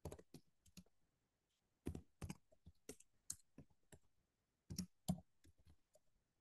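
Computer keyboard typing, faint: key clicks in short irregular runs, with pauses between them.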